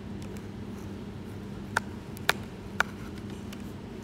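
Three sharp plastic clicks about half a second apart as the canopy of an ESKY 300 V2 RC helicopter is pressed onto its mounts, over a steady low hum.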